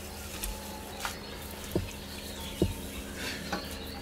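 Garden hose spray watering pumice substrate in a large bonsai pot, water pattering on the gravel, with a few short knocks. This is the copious soaking given right after repotting.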